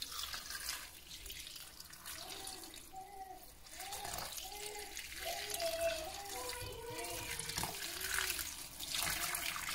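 Boiling water poured from a kettle spout onto nettle leaves in a saucepan: a steady splashing stream with repeated short gurgles as the pan fills.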